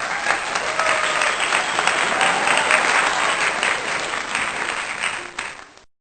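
Audience applauding, a dense patter of many hands clapping that dies away shortly before the end.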